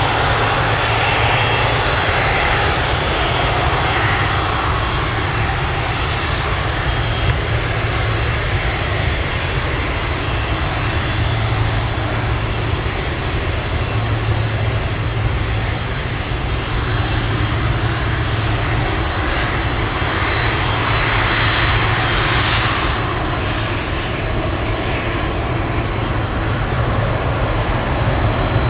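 Boeing 767-300's twin turbofan engines running at low power as the airliner rolls slowly along the runway after landing: a steady jet rumble with a high whine on top, swelling slightly about two-thirds of the way through.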